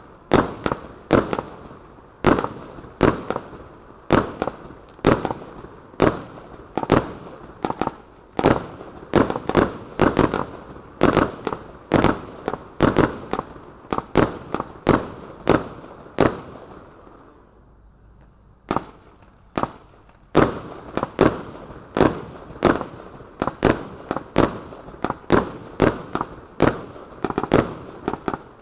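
Lesli Redhead Willow 25-shot firework battery firing its shots in quick succession, each a sharp bang with a short fading tail. After a pause of about two seconds just past halfway, the shots resume.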